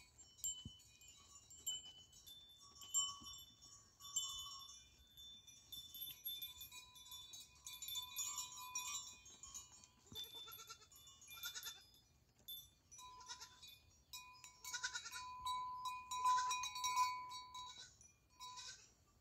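Goats bleating now and then, the loudest and longest calls coming in the last few seconds, over high tinkling, chime-like tones.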